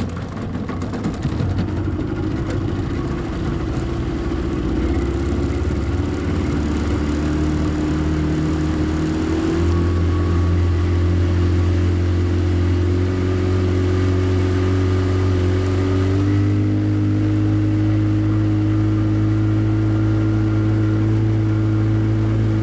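Tohatsu outboard motor pulling a water-skier. It throttles up over the first couple of seconds, then runs under load, its pitch stepping up about ten and again about sixteen seconds in before holding steady.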